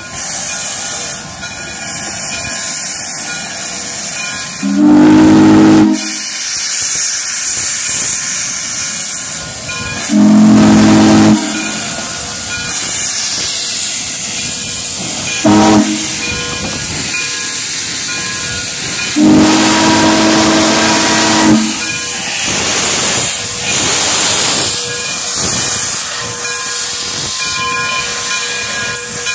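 Steam whistle of Frisco 1630, a 2-10-0 Decapod steam locomotive, blown as two long blasts, one short and one long, the grade-crossing signal pattern. Under it runs a loud steady hiss of steam venting from the open cylinder cocks, with shorter louder steam blasts toward the end as the engine works.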